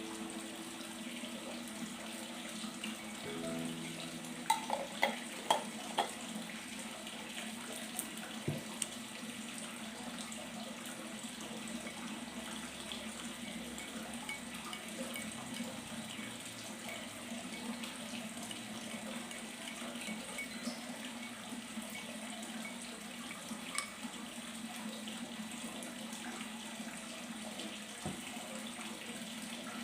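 Steady running water, with a few faint clicks about four to six seconds in.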